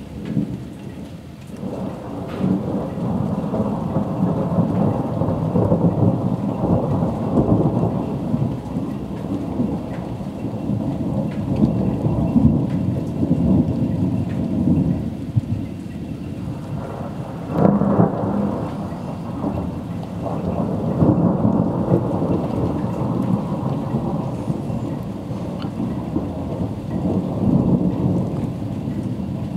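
Thunder rolling and rumbling almost without pause, with louder cracks breaking out about two seconds in and again a little past the middle.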